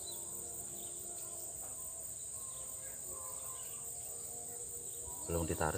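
Insects calling in a steady, high-pitched drone, with a short burst of voice near the end.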